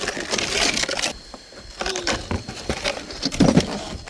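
Rustling and light clattering of things being handled, with scattered sharp clicks, busiest in the first second.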